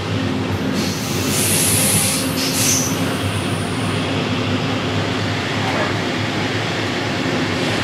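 Steady rumble of a EuroNight passenger coach rolling on the track, heard inside the coach's vestibule. About a second in, a high metallic squeal from the wheels rises over it for a couple of seconds, then fades.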